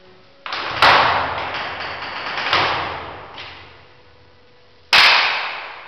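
Flamenco dancer's foot stamps on a hard floor: a few loud, sharp stamps, each ringing out in the room for about a second. The last comes about five seconds in.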